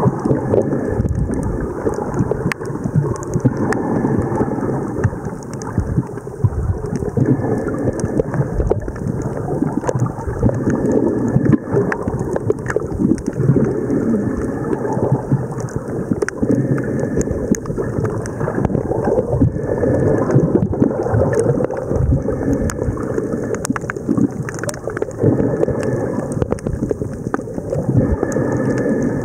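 Muffled, churning rumble of sea water heard by a submerged camera while snorkeling in swell, with many faint clicks scattered through it.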